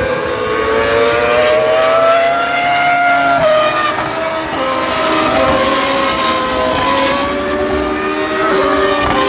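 Several racing car engines passing close by together. Their pitch climbs for the first three seconds, drops suddenly, then wavers at a lower pitch.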